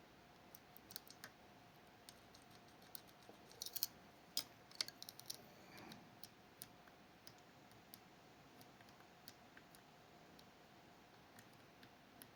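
Faint, scattered small metallic clicks from lock picks working the levers inside a Fichet 484 lever sidebar lock, with a short run of sharper clicks about four to five seconds in.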